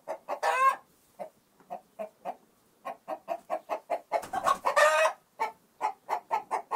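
A hen clucking in a quick run of short calls, with two longer drawn-out squawks, one about half a second in and one between four and five seconds in.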